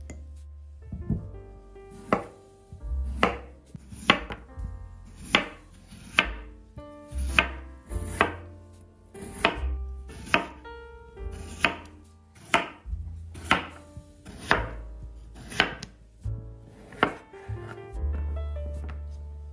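Knife cutting on a cutting board: sharp single strikes about once a second, over soft background music with a bass line.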